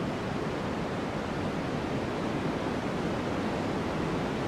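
Steady, even rushing noise of a white-noise track, with no changes and its weight in the low and middle pitches rather than the hiss.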